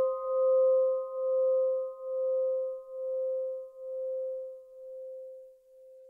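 Big Ben's great clock bell humming on after a strike: one ringing note that swells and fades about once a second as it dies away, its higher overtones gone within the first few seconds, to nothing near the end.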